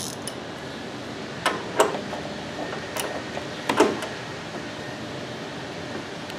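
A few sharp metallic clicks and knocks from a socket wrench and metal hardware being handled in a car's engine bay, four in about two and a half seconds, over a steady background hiss.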